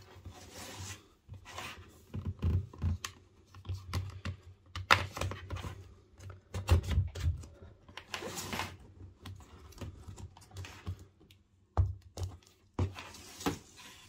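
Snap-in clips of a Dell Latitude 5290 2-in-1's screen panel clicking loose one after another as a pry tool is worked around its edge, with irregular clicks and scrapes.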